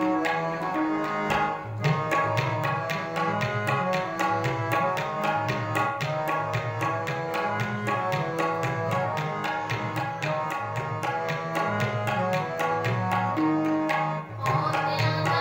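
Harmonium holding a melody in sustained reed notes over a tabla pair playing a steady, fast rhythm: an instrumental passage of Sikh Gurbani kirtan.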